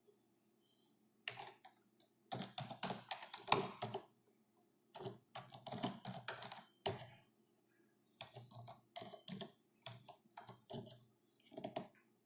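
Typing on a computer keyboard: quick runs of faint keystrokes in several spurts, with short pauses between them.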